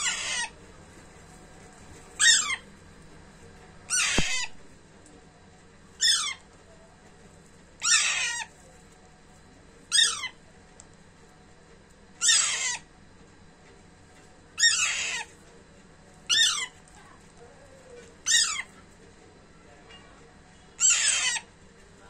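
Young Alexandrine parakeet giving loud, harsh squawking calls, one about every two seconds.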